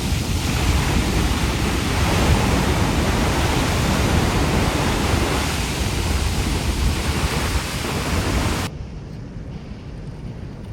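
Steady rushing roar of water pouring through an open dam spillway. A little over three-quarters of the way in the hiss cuts out suddenly, leaving a quieter, duller low rumble.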